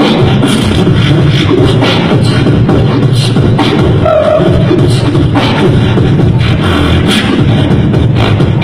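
Beatboxing into a handheld microphone, amplified: a continuous deep bass line with sharp snare-like hits about twice a second, and a short hummed tone about four seconds in.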